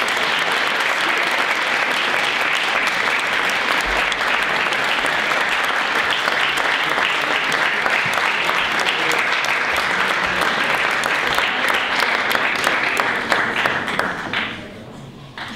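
Audience applause: many hands clapping steadily and densely, dying away about fourteen seconds in.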